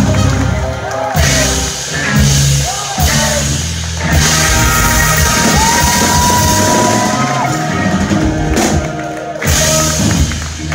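Live band playing loud: electric guitar over a drum kit with heavy hits on the beat, and one long held high note about halfway through.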